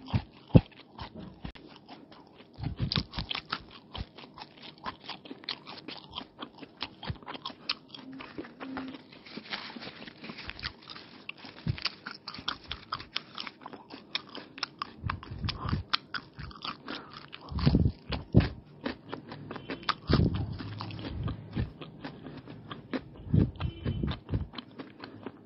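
A person chewing and biting egg rolls, paratha wrapped around egg, raw onion and cucumber, with many small crisp crunching clicks throughout and a few louder bites.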